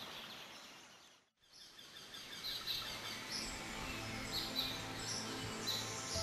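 Birds chirping over a steady bed of outdoor ambience. The sound fades out about a second in and fades back up.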